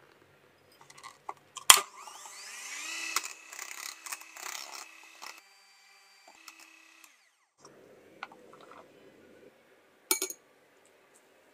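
Electric hand mixer clicked on, its motor whine rising as it spins up, then running with the beaters whirring through cake batter for about three seconds before it stops. Near the end, a brief metallic rattle from a mesh sieve being tapped over the bowl.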